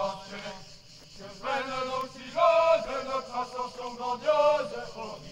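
Voices singing a chant-like song in short phrases, with held notes about two and a half seconds in and again near the end.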